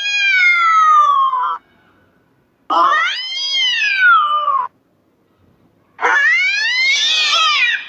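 Domestic cat giving long, drawn-out meows: three calls of about two seconds each. The first falls in pitch, the middle one rises then falls, and the last rises and is harsher.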